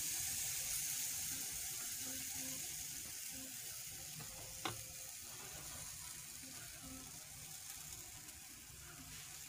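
Pancake batter sizzling in a lightly oiled non-stick frying pan on low-medium heat, a soft steady hiss that slowly dies down as the batter settles. A single sharp click a little before halfway through.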